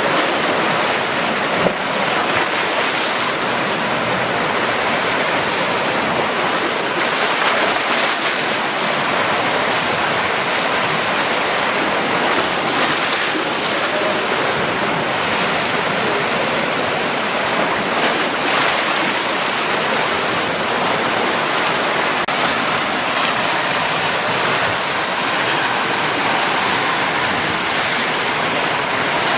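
Black Sea surf churning against a rocky shore: a steady, loud rushing of water.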